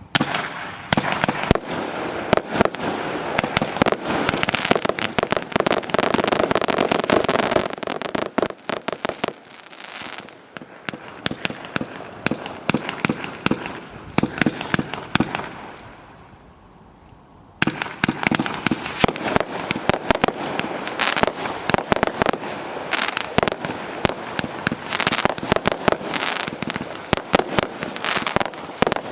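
A 399-shot 'Happy Fireworks' 1.4G fireworks cake firing a rapid, dense barrage of shots. After about eight seconds the firing eases off and almost dies away. Then, about eighteen seconds in, it starts again suddenly with a thick run of shots.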